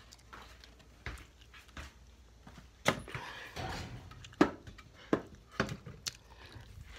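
Objects being handled and put away: a series of separate knocks and clunks, the loudest about three and four and a half seconds in.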